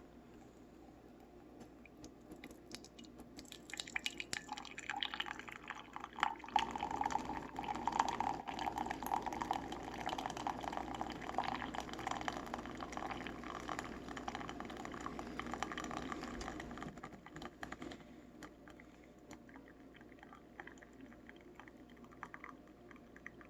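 Hot water poured into a pour-over coffee filter onto ground coffee, a steady splashing pour that builds over the first few seconds and stops after about 17 s. Faint dripping follows.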